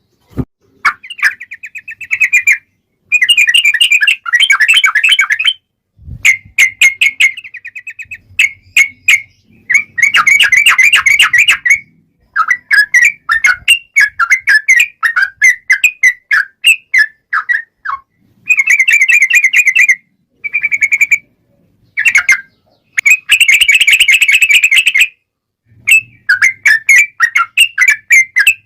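Sooty-headed bulbul singing a loud fighting song: fast rolling trills and chattering runs of notes, delivered in bursts of one to three seconds with short pauses between.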